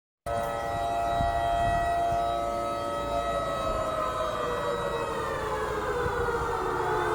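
Outdoor civil-defence warning siren sounding the nightly curfew signal. It starts suddenly, holds several steady tones at once, then slowly falls in pitch from about three seconds in to its lowest point near the end.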